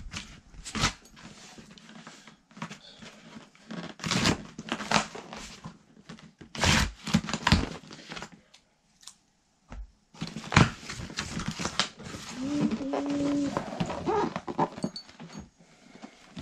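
Cardboard shipping box being opened by hand: packing tape cut and ripped, flaps pulled open and packing material rustling, in a run of short, sharp scrapes and tears.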